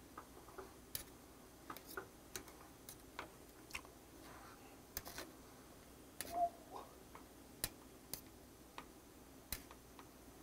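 Faint, sparse, irregular light clicks of metal tongs tapping and scraping a stainless mesh strainer held in a pot of simmering broth.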